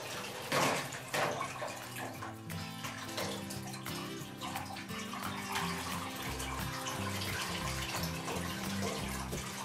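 Water sloshing and splashing in a plastic bowl as hands work fresh butter under ice-cold water, washing out the last of the buttermilk; the splashes are sharpest in the first second or so. Background music with a low bass line runs underneath.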